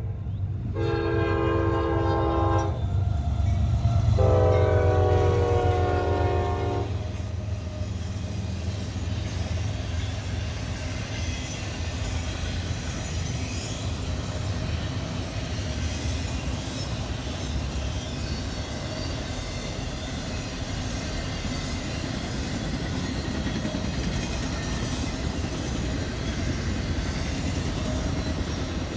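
Diesel freight locomotive horn sounds two blasts, the second longer and falling in pitch as the locomotive passes, over the low rumble of the engines. Then comes the steady rolling noise and clatter of an intermodal freight train's container and trailer cars going by.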